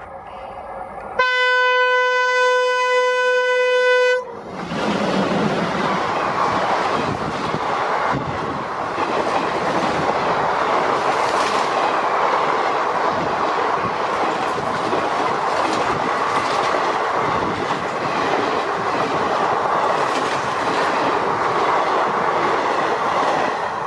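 Twin WDM3A ALCO diesel locomotives approaching at speed sound one loud, steady horn note for about three seconds. The locomotives then pass and the express coaches rush by with a continuous rolling rumble and wheels clattering over the rail joints.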